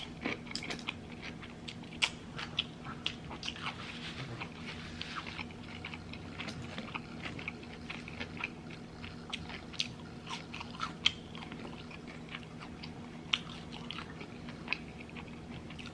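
A person chewing and biting food, with many short wet mouth clicks and smacks scattered throughout, over a faint steady low hum.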